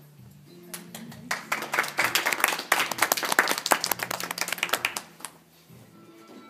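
A small group clapping hands in applause, starting about a second in and lasting about four seconds before dying away. Faint background music is heard before and after the clapping.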